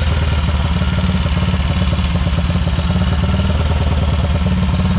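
Classic single-cylinder motorcycle engine running at low revs with a steady, rapid beat as the bike pulls slowly away.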